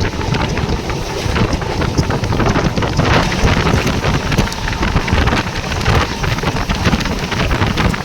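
Wind buffeting the microphone over the running noise of a Mumbai suburban local train, with a dense scatter of small clicks and rattles.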